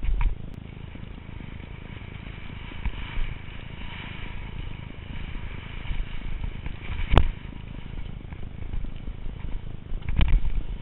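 Wind and skis on snow picked up by a helmet-mounted GoPro Hero as a steady low rumble, with a sharp knock about seven seconds in and a few heavier thumps near the end.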